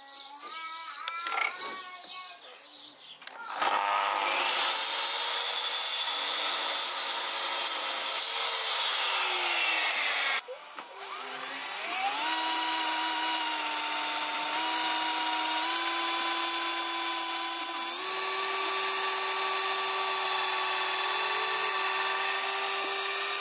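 A sliding mitre saw starts about three and a half seconds in and cuts an MDF brace, its motor whine falling as the blade winds down. After a break, a Bosch cordless combi drill runs into MDF, its whine rising and then stepping up in pitch several times as the trigger is squeezed harder.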